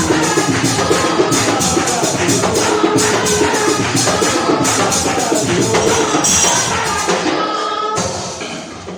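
Gospel worship music: voices singing over a steady tambourine beat, fading down in the last second.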